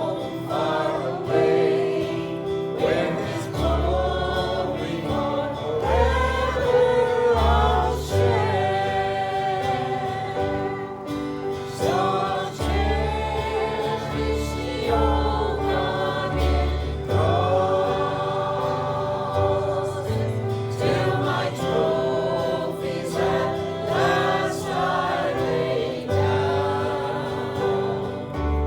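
A group singing a gospel hymn together, with instrumental accompaniment that includes a moving bass line.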